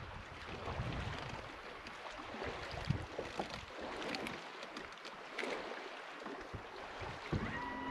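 Wind buffeting the microphone over lapping water, with a few light clicks and knocks.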